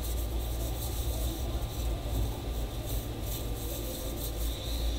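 A tissue rubbed back and forth over a phone's exposed frame and battery, wiping off oil, in irregular scratchy strokes over a steady low hum.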